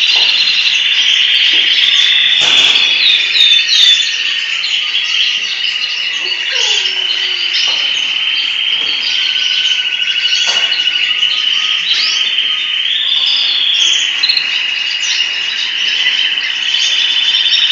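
Canary song: a continuous high, rapid trill with short chirps and gliding whistled notes over it.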